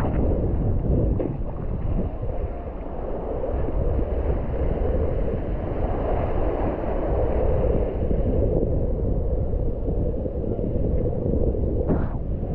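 Wind buffeting the microphone over rushing water, a steady loud rumble, with a few sharp splashes near the end.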